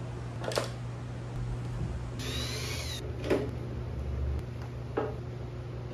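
Cabinet-assembly work sounds over a steady low hum: three separate knocks a second or two apart, with a short whine in between that rises and falls in pitch.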